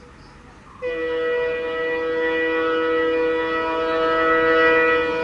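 Electric locomotive air horn, a WAP7, sounding one long steady blast of several notes at once, starting about a second in and held without a break.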